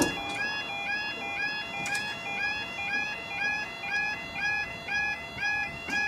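UK level crossing warning alarm sounding its yelping warble, a rising note repeated a little over twice a second, while the barriers come down to close the crossing. A sharp knock right at the start is the loudest sound, with two fainter clicks later on.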